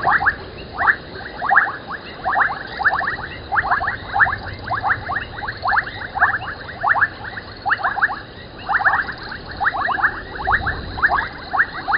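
Frogs calling at the waterhole: a chorus of rapid clicking calls in short runs, a run every half second to a second, with no let-up.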